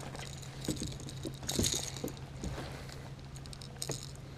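Light clicks and clinks of fishing tackle being handled while a small bass is unhooked, with a brief hissing rush about a second and a half in.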